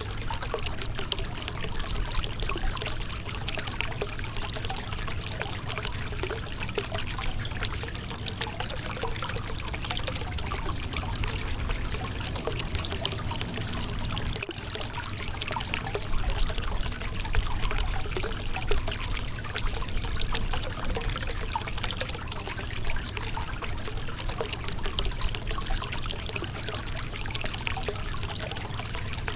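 Shallow river water running over a rocky bed, a steady rushing with constant small splashes and trickles.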